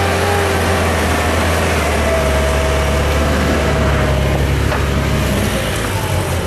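Heavy engine running steadily at an even low pitch, with a faint whine that drifts slightly lower partway through.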